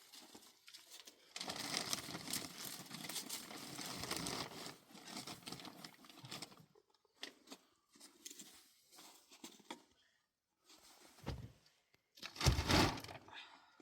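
Rustling, crinkling handling noise for several seconds, then scattered small clicks and two dull thumps near the end, the second the loudest.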